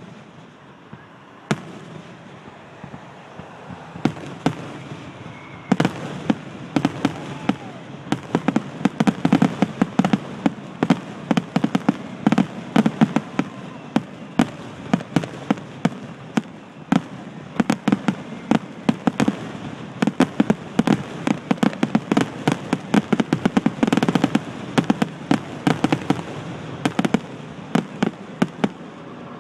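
Fireworks finale: a rapid, continuous barrage of aerial shell bursts and crackling, sparse at first and growing dense about six seconds in.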